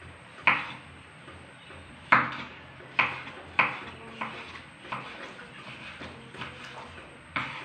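Kitchen knife chopping red chilies on a wooden cutting board: irregular knocks of the blade on the board, a few loud strokes in the first few seconds, then lighter, quicker taps.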